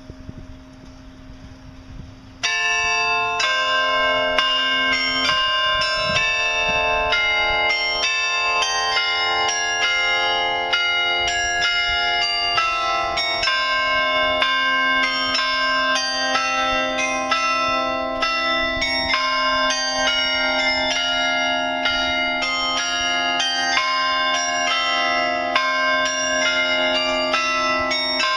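Carillon bells of the New Ulm Glockenspiel clock tower playing a tune. They start suddenly about two seconds in, with several struck notes a second ringing on over one another.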